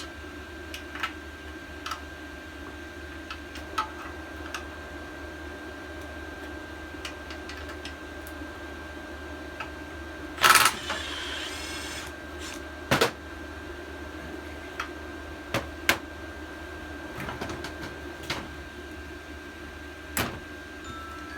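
Scattered metallic clicks and clanks of hand tools on the Scag edger as the bolts holding its engine are worked loose, with one louder clatter about halfway through that rings briefly. A steady hum runs underneath.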